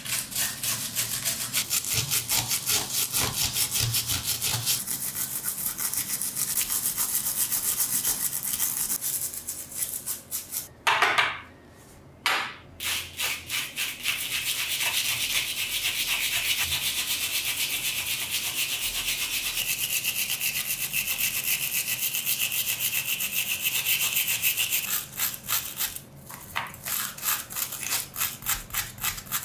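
A hand wire brush scrubbing rust off the thin sheet metal of an antique oil lamp's burner parts, in quick back-and-forth strokes, about four or five a second. The scrubbing stops briefly near the middle, then carries on.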